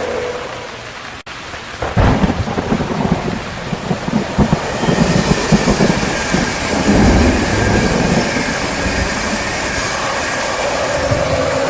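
Steady heavy rain with thunder: a low rumble breaks in suddenly about two seconds in, crackles for several seconds and eases off, leaving the rain.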